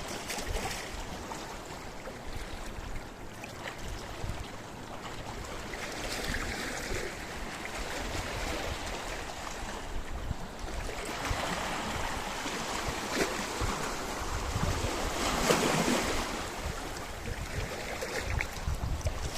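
Sea waves washing in over a rocky shore, a continuous rushing wash that swells several times, loudest about three-quarters of the way through, with a low rumble of wind on the microphone.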